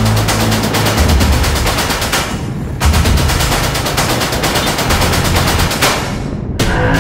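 Dramatic soundtrack music: a fast, even stream of sharp percussive hits over low bass notes that shift every second or two. The high end drops out briefly near the end.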